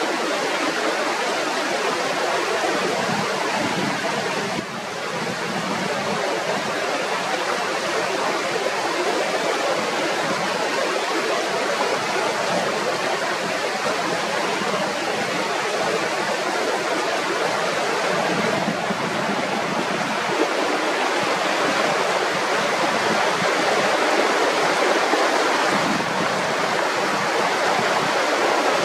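Mountain river rushing: a steady wash of flowing water, dipping briefly about five seconds in.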